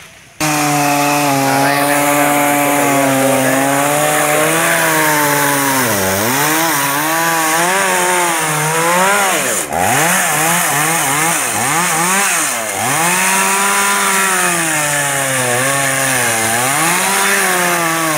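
Two-stroke chainsaw cutting through a tree trunk under load, starting abruptly about half a second in. Its engine note sags and recovers several times as the chain bites into the wood.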